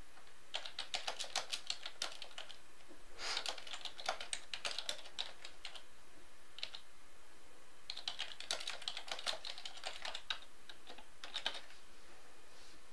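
Typing on a computer keyboard: four quick runs of key clicks with short pauses between them.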